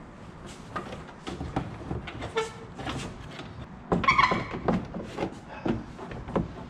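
Plastic fender liner being flexed and pushed into a Corvette's rear wheel arch: irregular scrapes, clicks and knocks of plastic against the fender, with a short squeak about two and a half seconds in and a louder squeak about four seconds in.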